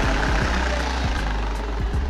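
Aprilia Shiver 900's V-twin engine dropping back to idle after a rev, a steady low rumble broken by uneven low thumps from the stock exhaust.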